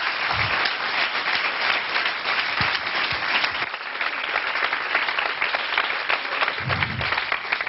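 Audience applauding: a steady, dense clapping from a large crowd, with no voices on top.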